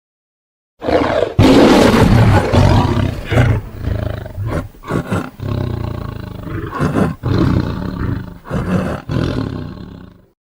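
Tiger roaring: a long, rough roar with several short breaks, starting about a second in and fading out near the end.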